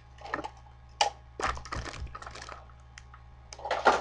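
Irregular clicks and clatter of small hard objects being handled and set down, with a few low thumps about a second and a half in and the loudest knock near the end.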